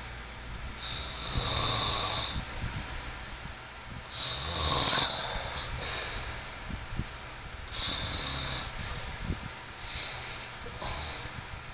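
A sleeping man snoring heavily, each breath drawing a loud, rasping snore about every three to four seconds; the last two snores are fainter.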